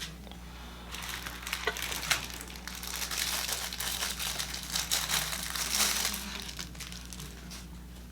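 Packaging wrap crinkling and crackling in the hands as it is unwrapped from a new knife, in irregular handfuls, dying away near the end.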